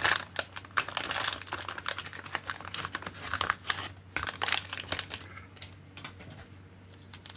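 Plastic parts bags crinkling and crackling as they are handled, with many sharp clicks; busiest in the first half, thinning out after about four seconds.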